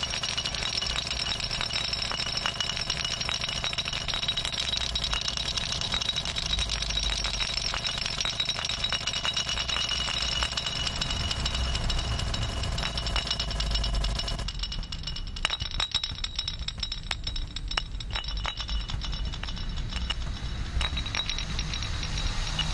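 Live improvised hand percussion: fast, dense rattling layered with looped, granular-processed electronic sound. Steady high tones and a mid-range drone sound over it and cut out about two-thirds of the way through, leaving sparser clicks over a low rumble.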